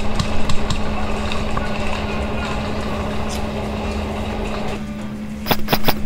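Field audio from a camera during an airsoft game: a steady rushing noise with a few faint clicks, then three sharp snaps in quick succession about five and a half seconds in.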